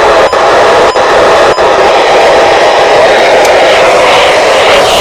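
Radio static: a loud, even hiss from a weather radio receiving a weak broadcast signal. It drops out briefly three times in the first second and a half, then runs steady.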